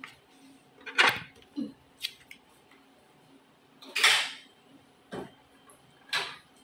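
Several short clatters and rustles of things being handled on a dining table. The sharpest comes about a second in, and a longer rustle comes about four seconds in.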